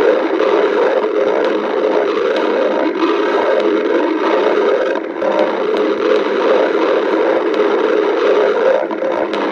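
A hungry person's stomach growling continuously, with many small clicks running through it and brief dips about five seconds in and near the end.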